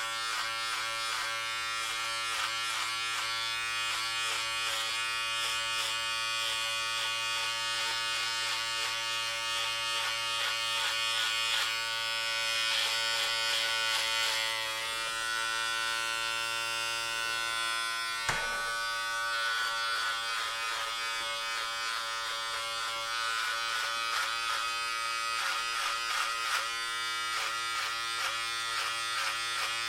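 Electric hair clippers running with a steady buzz while cutting hair, the rasp of the blades swelling and easing as they pass through the hair. A single sharp click about two thirds of the way through.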